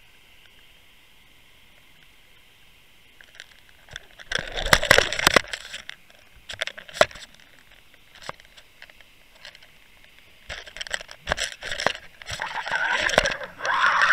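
Handling noise from an underwater camera on a fishing rig: a faint steady hiss, then irregular bursts of crackling and knocking as the rig is jigged. Near the end the crackling thickens into a steady noisy rush as the rig is lifted.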